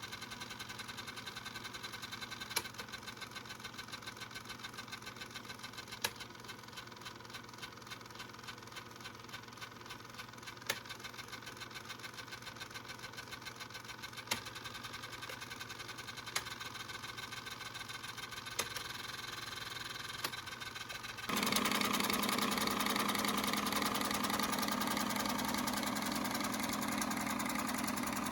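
Eumig Mark 610D Dual 8 film projector running, its film transport making a fast, even clatter, with a few single clicks every few seconds. About three-quarters of the way through the sound suddenly gets louder and fuller and stays that way.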